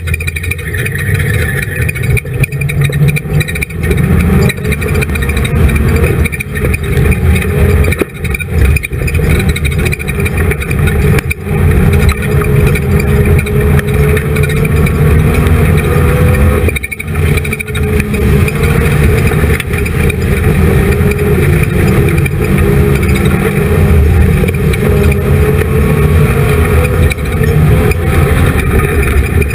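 Dirt-track race car engine running hard at racing speed, heard onboard from inside the roll cage, with a wavering pitch and a few brief dips where the driver eases off.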